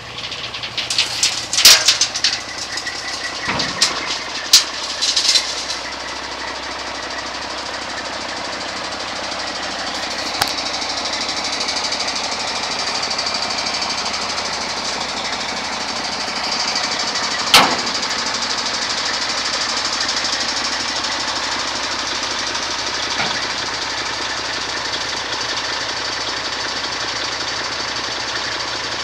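Diesel engine of a 1993 International 9400 dump truck idling with a steady clatter. Several sharp knocks come in the first five seconds, and one more about 17 seconds in.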